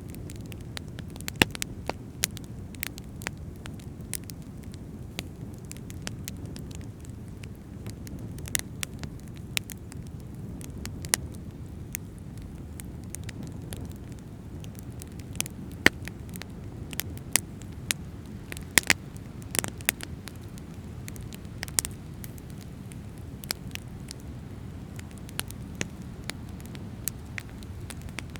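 Fire crackling: irregular sharp pops and snaps, a few louder than the rest, over a steady low rush.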